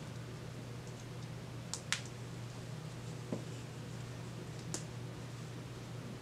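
A few light clicks and taps from a doll and its pajamas being handled, two close together about two seconds in and single ones later, over a steady low hum.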